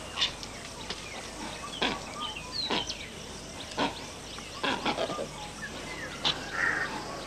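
Birds chirping in the background, with a series of short sharp clicks or calls at irregular intervals about a second apart.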